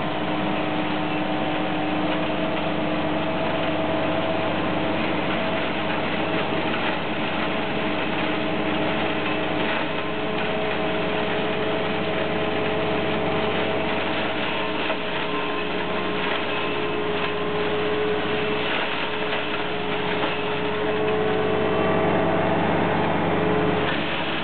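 Kuhn EP 5762 SPR reach-arm flail mower chopping through hedge shrubs. Its whirring flail head runs over the steady running of the Deutz tractor's engine and hydraulics, and gets a little louder near the end.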